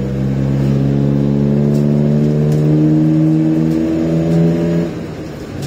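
Iveco Daily 35-8 van's diesel engine, heard from inside the cab through a newly fabricated custom exhaust: a loud, deep drone that rises slowly in pitch under acceleration, then drops away about five seconds in as the revs fall. The driver calls it quite some racket.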